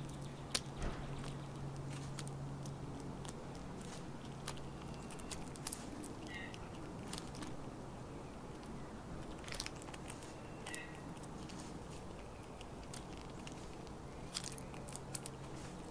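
Eastern gray squirrel eating bird seed and nuts, with irregular sharp crunches and clicks as it bites and chews. A few short high chirps sound now and then.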